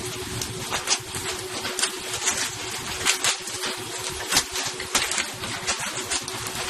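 A boat engine humming steadily, with irregular sharp knocks and slaps coming every half second or so over a noisy wash.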